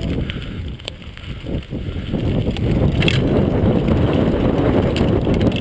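Mountain bike descending a rough dirt trail: tyres rumbling over the ground and the bike rattling, with wind buffeting the camera's microphone.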